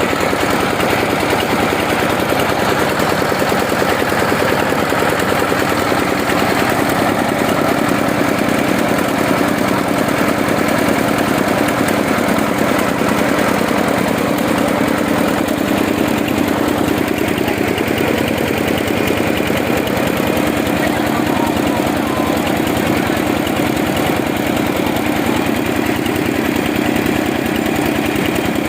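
Diesel engine of a mobile rice mill running steadily, driving the milling machinery, with a dense, even mechanical din.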